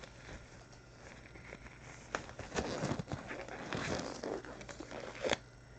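Handling noise: rustling and light tapping of items being moved about on a table, starting about two seconds in and ending with a sharp tap.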